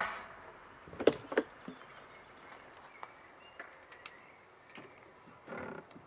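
Two sharp knocks about a second in, then lighter knocks and rustling near the end, as someone steps up into a camper van through its door. Faint bird chirps in the background.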